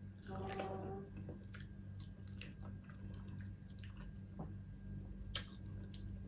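Quiet chewing and mouth sounds of someone eating, with scattered soft clicks and smacks, one a little louder about five seconds in, and a short hummed 'mm' near the start.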